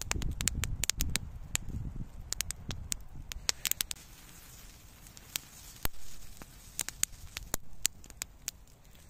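Wood fire crackling, with irregular sharp pops and snaps. A low rumble underneath fades out about two seconds in.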